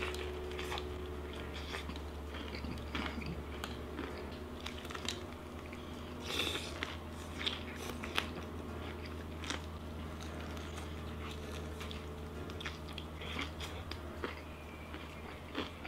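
Close-miked biting and chewing of crispy fried chicken: irregular crunches and crackles of the breading, with the loudest crunch about six and a half seconds in, over a steady low hum.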